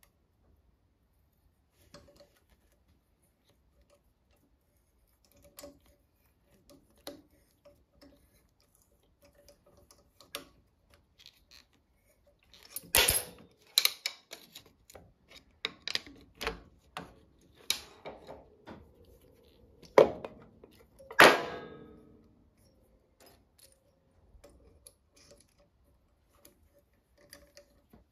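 Metal hand tools and small parts being handled and set down: scattered light clicks and clinks, a run of louder knocks in the middle, and two sharp knocks about a second apart a little later.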